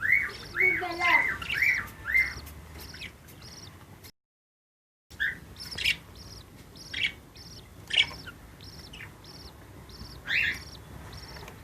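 Budgerigars chirping while feeding their chicks: a short high call repeats evenly about twice a second, with louder rising-and-falling chirps over the first two seconds. The sound cuts out completely for about a second partway through.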